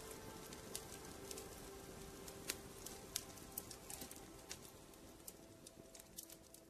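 Soft background music with held sustained notes, overlaid with scattered sharp crackling clicks like rain or record crackle, slowly fading out.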